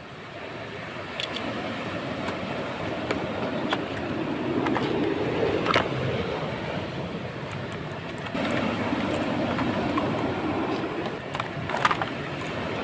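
Waves washing on a beach: a steady rushing that swells twice, with scattered small clicks and taps over it.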